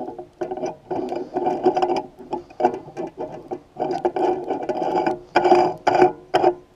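Short squeaky scrapes with small clicks, repeating a few times a second, as parts of a pole-light fixture are worked by hand.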